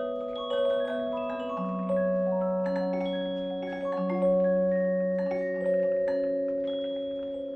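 Slow background music of struck mallet-percussion notes, each ringing on for a second or more and fading slowly.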